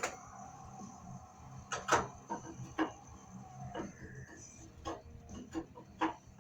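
A series of light metallic knocks and clinks, about eight separate strikes spaced irregularly, some with a brief ring after them, as steel parts are handled and set down in a fabrication shop.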